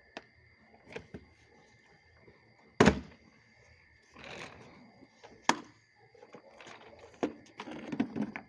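Plastic clicks and knocks as the latches on a Ridgid wet/dry shop vacuum's motor head are undone and the head is handled. There is a loud hollow thunk about three seconds in, a sharp knock about halfway, and a run of clicks near the end.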